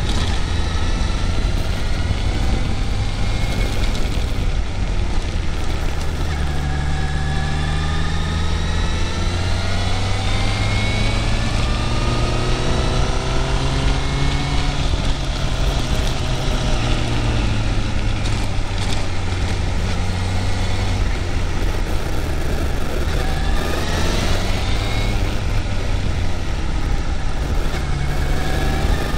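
Motorcycle engine under way, its pitch climbing and dropping repeatedly as it accelerates and shifts gears, then easing off about halfway through, with heavy wind rush on the microphone.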